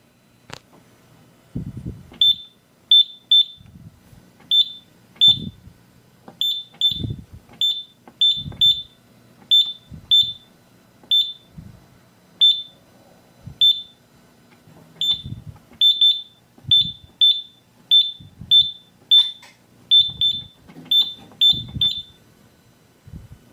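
Simplex 4100U fire alarm panel keypad beeping at each key press: about 25 short, high single-pitch beeps at an uneven pace, most with a soft thump of the button being pressed.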